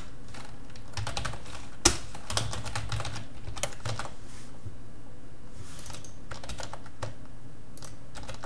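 Typing on a computer keyboard: a quick run of keystrokes from about a second in until about four and a half seconds, then a few scattered clicks.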